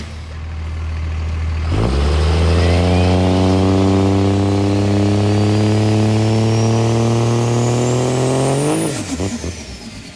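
Dodge Ram pickup's diesel engine with a big single turbo, revved hard and held while the truck stands still. The turbo whistle climbs steadily for about seven seconds as it spools up. Near the end the throttle is released and the whistle and engine note drop away.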